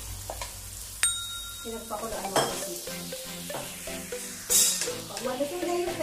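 Squid and pechay sizzling in a wok as squid broth is poured in, then a wooden spatula stirs and scrapes through them, with a louder scrape and sizzle about four and a half seconds in. Faint background music runs underneath.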